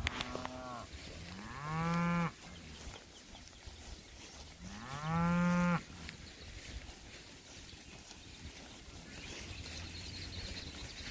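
Cattle mooing: a short higher call right at the start, then two loud moos about a second long each, rising in pitch and then holding, near two and five seconds in.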